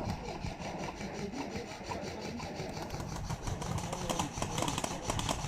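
Footsteps crunching on gravel and debris, with rustling and scraping of clothing and gear: an irregular run of small crunches and clicks.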